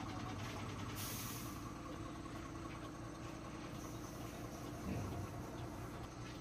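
Ashok Leyland truck's diesel engine idling steadily, heard inside the cab. About a second in there is a short hiss of air, and near the end there is a brief thump.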